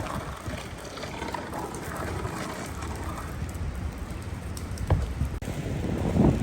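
A house fire burning in strong wind, crackling with many small irregular pops over a steady rush of wind on the microphone. The wind rumble grows louder after a brief drop about five seconds in.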